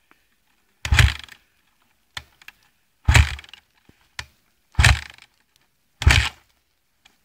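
Dirt bike being kick-started: four heavy thumps, one to two seconds apart, and the engine does not catch.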